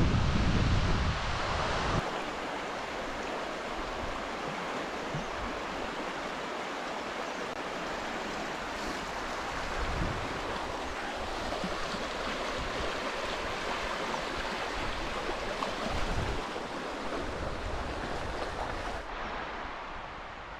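Wind buffeting the microphone for the first two seconds, then the steady rush of a shallow mountain stream flowing over stones.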